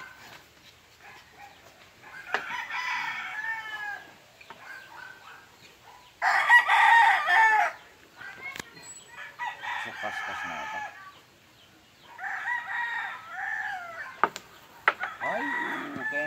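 Roosters crowing again and again, five crows of about a second and a half each, the loudest about six seconds in. A few sharp clicks come from the pool table between the crows.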